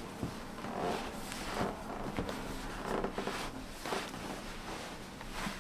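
Soft, irregular rustling and shuffling of clothing being handled and moved.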